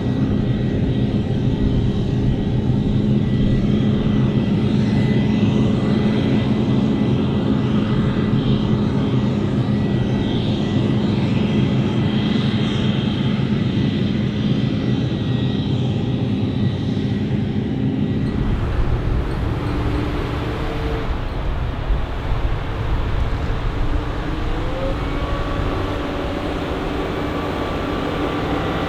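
Heavy diesel harvest machinery running steadily with a loud, droning engine note. About two-thirds of the way through the sound changes abruptly to a slightly quieter drone with different tones, as a different machine or position takes over.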